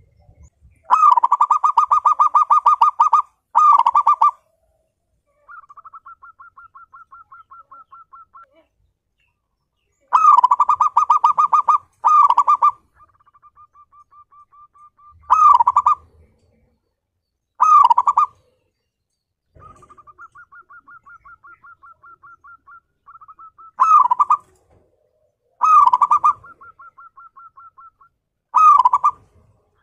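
Zebra dove (perkutut) singing its cooing song: loud phrases of a second or two, each a rapid rolling run of coo notes, repeated nine times. Softer, longer trilling runs fill the gaps between them.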